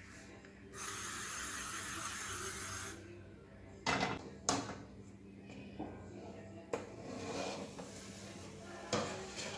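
A frying pan and lid being handled on a gas stove while a cake is turned over in the pan. A steady hiss lasts about two seconds, then come two sharp metal knocks about four seconds in and a few lighter knocks later.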